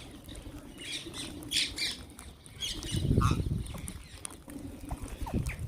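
Wild green parrots squawking in short, scattered calls, with a low rumble about three seconds in.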